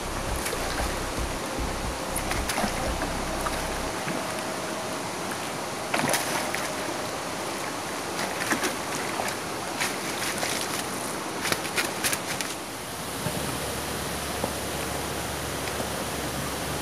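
A hooked fish splashing in the water as it is scooped into a landing net: sharp splashes about six seconds in and again in a cluster between about ten and twelve seconds, over a steady hiss.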